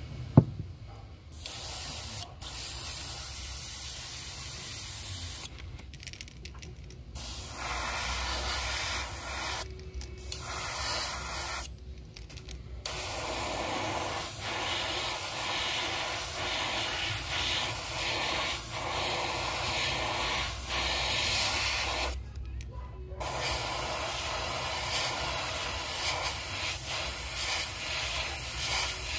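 A sharp click just after the start, then an airbrush spraying paint: a steady hiss of air that stops briefly four times and starts again.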